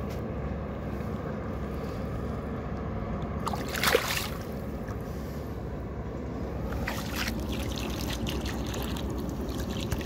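Shallow water splashing as a released bream kicks free of the hand, with one sharp splash about four seconds in and a smaller one around seven seconds, over a steady low rumble.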